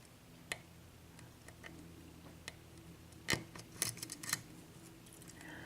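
Faint, scattered clicks of a lock pick lifting and scraping the pin stacks inside a Dorma mortice lock cylinder under light tension, with a louder cluster of clicks a little past the middle.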